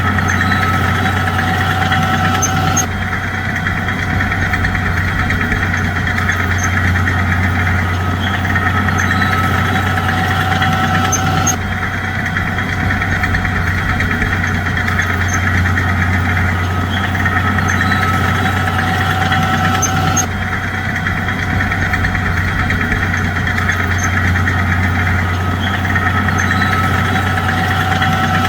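Bulldozer's diesel engine running steadily at a constant pitch. The same stretch of sound repeats about every nine seconds, with an abrupt join each time, like a looped track.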